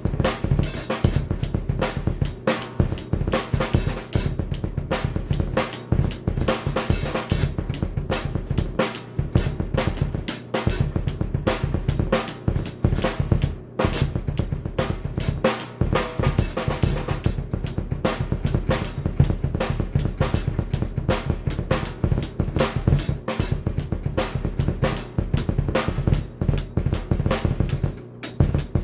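Drum kit played fast with double bass drum pedals: a dense, rapid run of kick-drum strokes under snare hits and cymbals.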